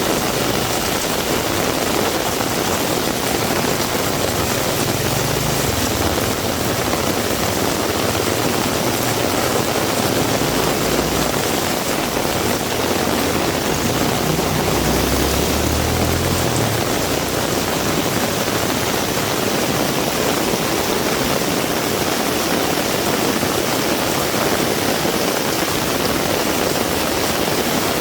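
Heavy rain pouring steadily, a dense even hiss with no pauses, with brief low rumbles about five seconds and fifteen seconds in.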